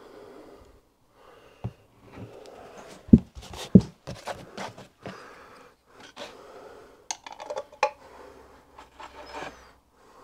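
Workbench handling noises: two dull thumps about three seconds in, then scattered light clicks and knocks, a cluster of them around seven to eight seconds.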